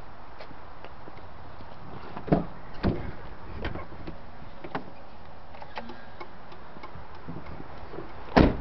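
Knocks and clicks of a pickup truck's door and cab being handled: a few sharp knocks two to three and a half seconds in and one loud thump near the end, over a steady background noise.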